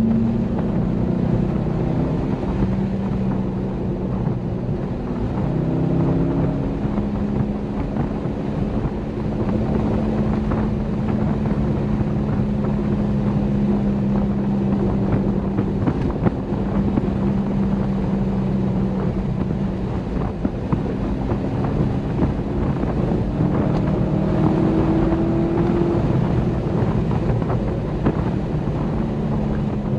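Chevrolet Corvette C6 Grand Sport's LS3 V8 running at a steady cruise, heard from inside the car's trunk, its note shifting a little with throttle and rising slightly near the end, over wind and road noise.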